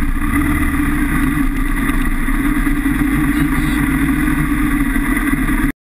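Kawasaki KLR650's single-cylinder engine running steadily while riding a dirt trail, heard from on the bike with a low rumble underneath. The sound cuts off suddenly near the end.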